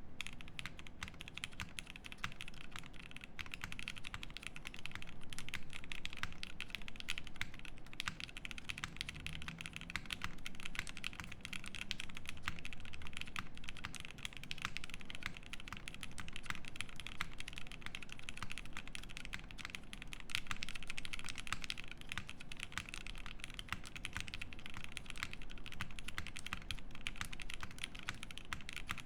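Fast, continuous typing on a Prophet mechanical keyboard with lubed FFFF switches in Cherry top housings, a nylon plate and GMK keycaps: a dense, even stream of keystrokes.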